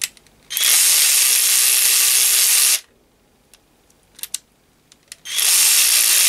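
18-volt cordless 3/8-inch right-angle ratchet wrench running free for about two seconds, then, after a few clicks as the forward/reverse selector on its head is flipped, running again in the other direction. Each run spins up quickly and then holds a steady whirr.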